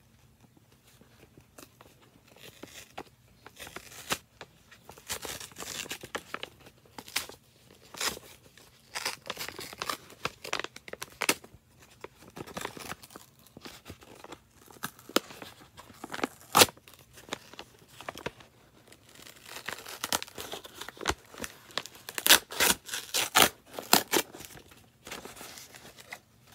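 A paper mailing envelope being torn open by hand: irregular rips and crinkling, coming thicker and faster in the last several seconds.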